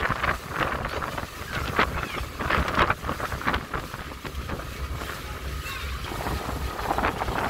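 Harbour ferry under way: wind buffeting the microphone on the open deck over the low, steady rumble of the ferry's engine and the wash of water along the hull.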